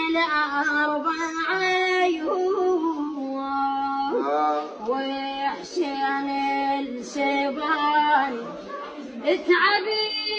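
A boy singing a lament unaccompanied in a high voice, holding long drawn-out notes that bend, waver and glide between pitches.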